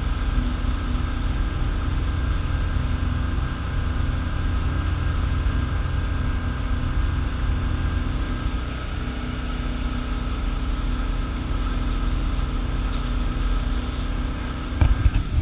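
A wake-surf boat's inboard engine runs steadily under way, mixed with the low rumble and hiss of the churning wake behind the stern. A few louder low thumps come just before the end.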